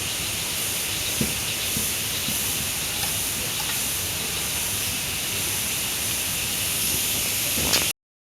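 Steady rushing of a waterfall, an even hiss with no rhythm, with a faint knock or two; it cuts off abruptly near the end.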